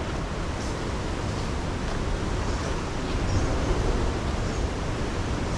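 Steady ocean surf mixed with wind buffeting the microphone, a continuous rushing noise with a heavy low rumble.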